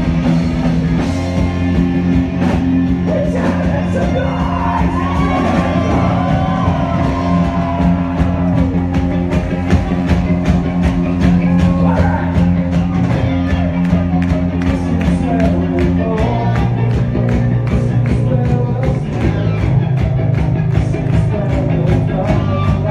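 Live rock band playing loud: electric guitar and bass holding low chords over steady drum hits, the chord changing about two-thirds of the way through.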